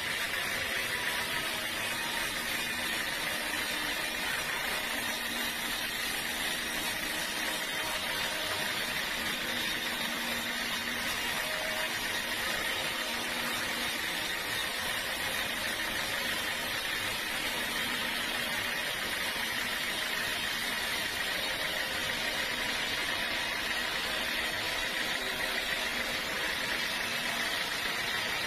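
Sawmill machinery running with a steady, unchanging noise.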